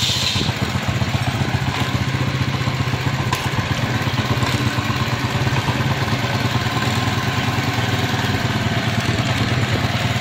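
TVS Victor's single-cylinder engine idling steadily. It keeps running without cutting out now that the broken main power wire has been joined.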